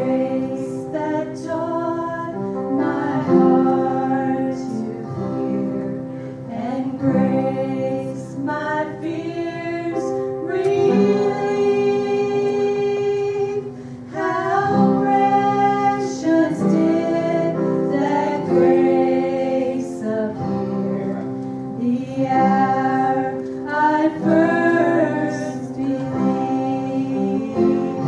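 A woman singing a gospel song over instrumental accompaniment with long held chords.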